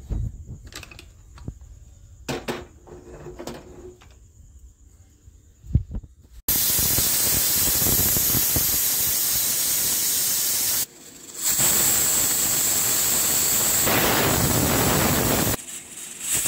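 A few light knocks and clicks, then, about six and a half seconds in, an aluminium pressure cooker's whistle weight blows off: a loud steady hiss of venting steam, broken by two short gaps. It is the cooker's whistle, sounding because it has come up to full pressure.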